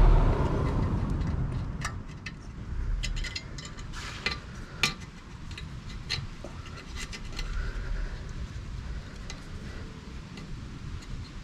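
Small metal clips clicking and clinking as they are worked by hand onto a motorcycle's exhaust pipe, in scattered sharp ticks. A passing vehicle's rumble fades out over the first couple of seconds.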